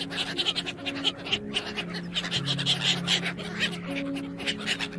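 Mallard ducks quacking in short rapid calls over background music of soft held notes.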